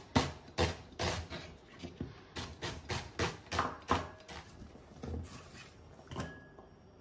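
Chef's knife slicing an onion on a bamboo cutting board, each stroke knocking the blade on the board about three times a second. The cutting thins out to a few softer knocks after about four seconds.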